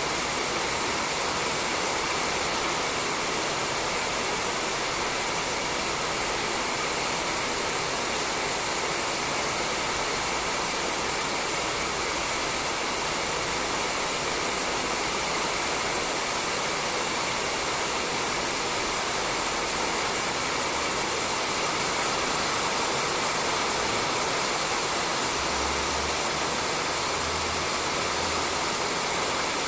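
Steady rain falling on a roof: an even hiss that holds at the same level throughout.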